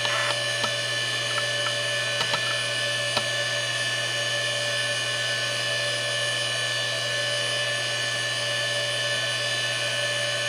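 Seagate Barracuda 9LP ST39173W 7,200 RPM ball-bearing SCSI hard drive spinning at full speed: a loud, steady whine made of a low hum and several high tones, with a few light ticks in the first three seconds. The drive is in perfect health.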